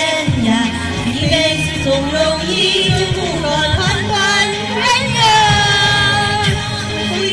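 Women's voices singing a Chinese song over backing music, amplified through stage microphones, with long held notes.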